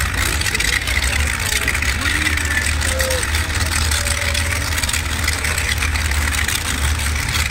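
Engine of a modified pulling tractor idling with a steady low rumble at the start line. Voices and crowd noise are mixed in over it.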